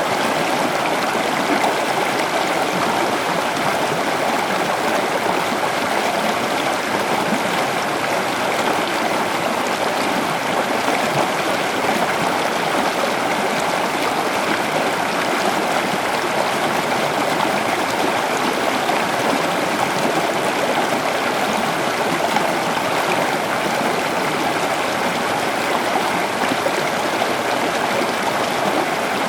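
Floodwater rushing in a steady, unbroken torrent.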